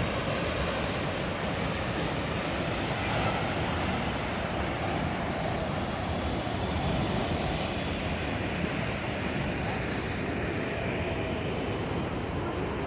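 Wahclella Falls pouring: a steady, unbroken rush of falling water.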